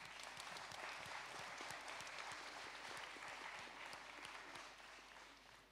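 Applause from the panelists and audience, a dense patter of hand claps that gradually dies away over the last couple of seconds.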